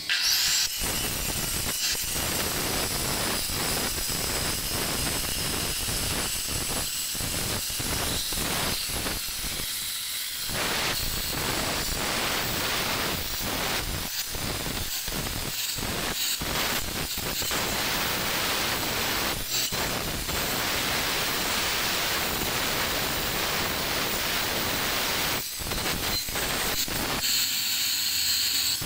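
Handheld electric angle grinder grinding a white stone elephant statue: a dense, steady grinding noise, strongest in the high pitches, with many short dips as the disc eases off and bites into the stone again.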